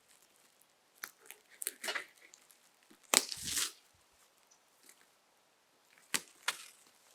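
Crinkling and rustling of the canopy tent's cover being handled, in three short spells, the loudest about three seconds in.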